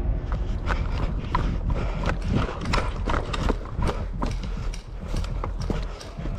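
Quick, irregular footsteps, about three a second, over a steady low rumble.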